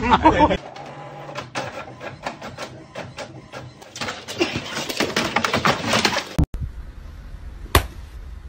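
A dog scrabbling with its paws at a wooden TV cabinet: rapid, irregular clicks and scrapes of claws that stop about six and a half seconds in. A single sharp click follows near the end.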